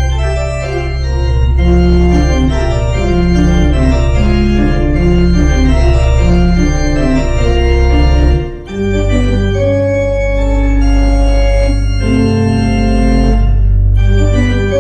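Church organ playing sustained chords over a low pedal bass. There is a brief break about eight and a half seconds in, then a new phrase begins.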